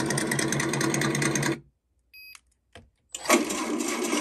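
Electronic engine sound simulator speaker on an RC crawler playing a simulated running engine with a fast, even beat. About a second and a half in it cuts out and gives a short electronic beep, then just over three seconds in a different engine sound starts suddenly: the module switching to its next engine sound.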